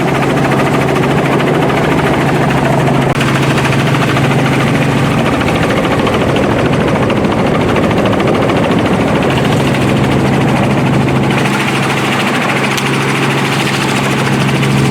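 Helicopter in flight, its turbine engine and rotor running steadily with a constant low hum.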